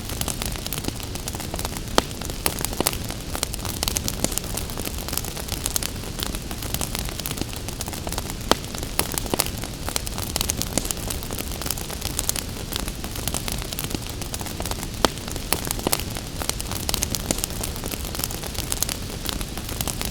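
Wood fire crackling constantly, with a few sharper pops, over a steady hiss of gentle rain.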